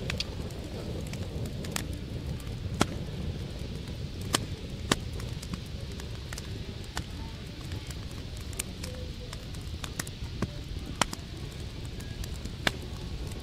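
Open wood fire crackling, with sharp pops at irregular intervals, over a steady low rumble.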